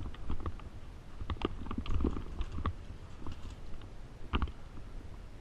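Handling noise from a player moving with airsoft gear: scattered sharp clicks and knocks over a low rumble, the strongest knock about four and a half seconds in.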